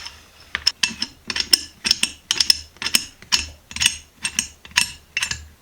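Rusted 12-inch Ridgid pipe wrench being worked against its rust-seized parts: a string of sharp metal clicks and taps, about two to three a second, until it comes loose.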